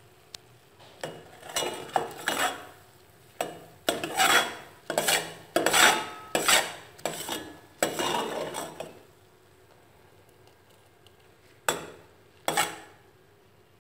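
Steel ladle scraping and stirring thick, tar-like boiled-down cola in a stainless steel pot, metal rubbing on metal. A quick run of scrapes lasts about eight seconds, then comes a pause and two more scrapes near the end.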